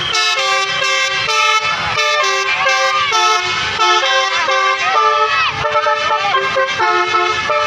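Telolet Basuri musical bus horn playing a tune: a multi-tone air horn sounding a quick run of short notes that step up and down in pitch.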